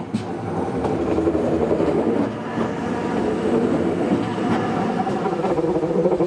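Matterhorn Gotthard Bahn metre-gauge electric train running along the track: a steady, loud running noise of wheels on rails.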